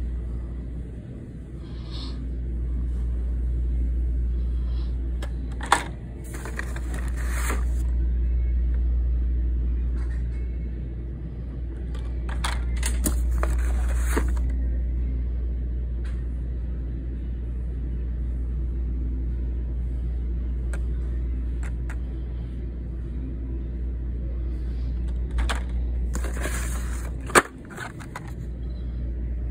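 Plastic blister-packed Hot Wheels cards scraping and rustling against each other and the cardboard case as they are pulled out, in a few short bursts with a couple of sharp clicks, over a steady low rumble.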